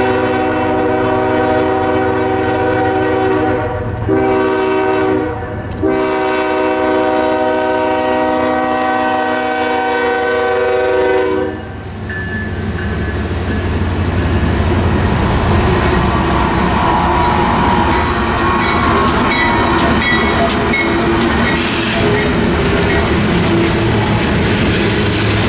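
The lead Norfolk Southern GE ES44DC locomotive's air horn blows for the grade crossing, breaking twice for a short blast and then holding a long blast until about twelve seconds in. The locomotives then rumble across the crossing with engine noise, wheels clacking over the rail joints, and brief wheel squeals.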